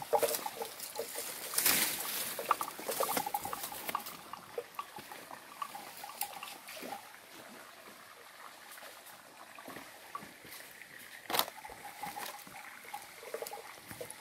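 Footsteps crunching and rustling through dry leaf litter and bamboo undergrowth, with a shallow stream trickling over stones.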